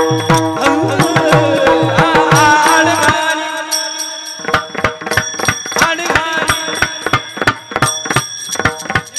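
Kirtan music in the Bhairavi chaal: a drum beats a fast rhythm under a steady held drone, with a sliding melody line over it at first. About three seconds in the deep drum strokes drop out, leaving only sharp higher strikes, and they come back at the end.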